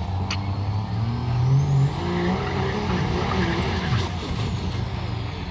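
Diesel pulling vehicle's engine revving hard under load, its pitch climbing in steps and then dropping about four seconds in, with a high whistle rising and falling over it.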